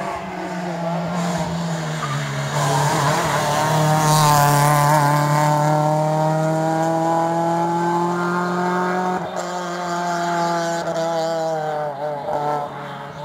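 Rally car engine running hard at high revs under load, its pitch climbing slowly over several seconds. It is loudest about four seconds in, with a short dip about nine seconds in.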